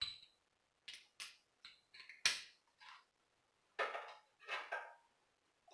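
Metal hand tools from a socket set clinking and clacking as they are handled: a dozen or so separate, irregular knocks, the loudest about two seconds in.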